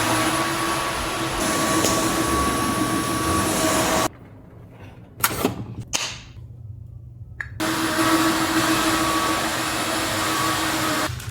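Roborock F25 ACE wet-dry vacuum running steadily with a humming whir. About four seconds in it cuts off abruptly; there are a couple of knocks in the quiet, and it runs again some three and a half seconds later.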